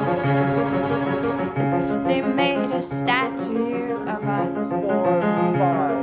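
Background music with piano over a steady, regularly changing bass line; a wavering melody line comes in about two seconds in.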